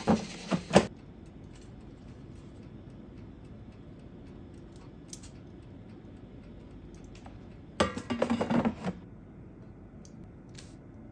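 Short clicks and clatters of objects being handled: a few sharp knocks at the start and a quick run of them about eight seconds in, over a low steady room hum.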